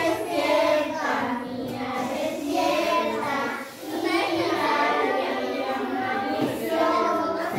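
Children singing a birthday song together.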